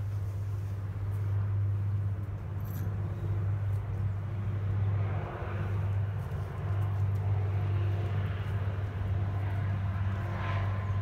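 A steady low machine hum, like a motor running, with a second fainter tone above it. Brief faint noises come about halfway through and again near the end.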